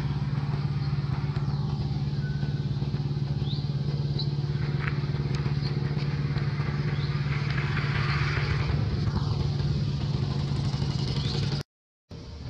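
Steady low engine hum, with a few faint short high chirps above it; it cuts out suddenly near the end.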